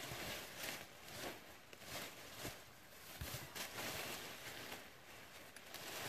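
Dry leaves and brittle twigs rustling and crackling as they are grabbed and pulled by hand, in a run of short scratchy bursts with a few sharp snaps.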